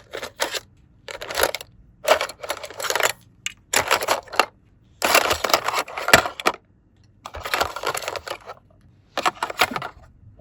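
Small hard plastic toy pieces clicking and clattering as they are handled, in about seven short bursts of rattling with pauses between them.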